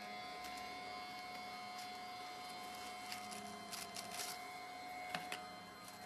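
Steady electrical hum, with faint rustles and a few light clicks from hands handling a paper bill and small objects, most of them between about three and five seconds in.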